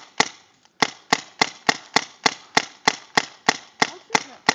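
Tippmann A-5 paintball marker firing about fifteen quick semi-automatic shots, roughly three a second, each a sharp pneumatic pop.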